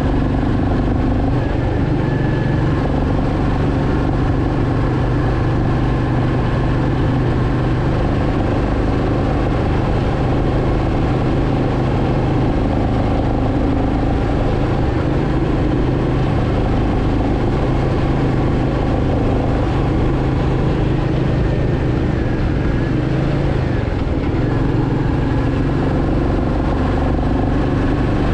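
Royal Enfield Meteor 350's single-cylinder 349 cc engine and exhaust running at a steady cruise on the move, the engine note holding nearly even with a slight dip a little over twenty seconds in.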